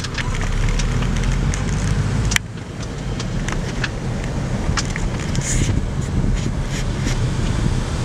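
Busy street traffic of motor scooters and cars: a steady low engine and road rumble with scattered clicks and taps. The sound breaks off abruptly about two and a half seconds in and resumes a little quieter.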